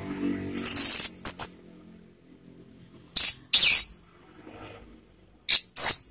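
Orange-headed thrush (anis merah) calling in short, very high-pitched bursts: a quick stuttering cluster about a second in, two calls that slide down in pitch around three seconds, and more rapid notes near the end.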